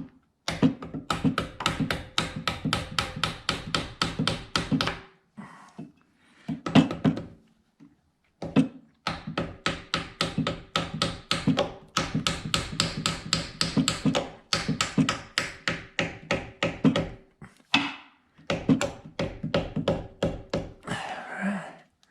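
Ratchet wrench clicking in runs of quick, even strokes, about six clicks a second, with short pauses between runs. A short rustle near the end.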